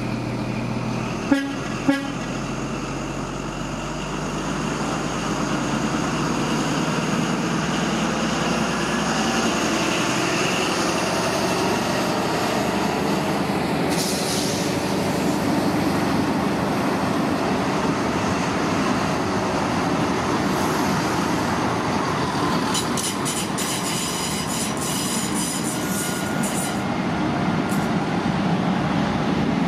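An HST (Intercity 125) passing close by, led by a Class 43 diesel power car. A steady engine hum is heard as it nears, then the running rumble of its coaches, with a run of rapid clicks from the wheels over rail joints a few seconds before the end. Two short sharp bangs come about a second and a half in.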